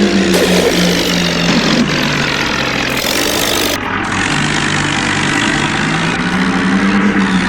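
An engine running steadily, its pitch wavering slightly, with abrupt jumps in the sound about a third of a second in and again around three to four seconds in.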